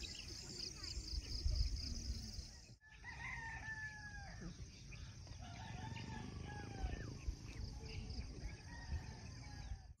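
Roosters crowing, several long drawn-out calls starting about three seconds in, over a steady high-pitched buzz of insects.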